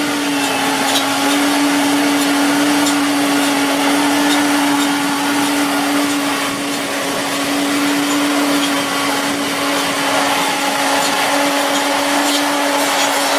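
Self-propelled tobacco harvester running steadily as it strips leaves. It gives a constant high hum over a rushing noise.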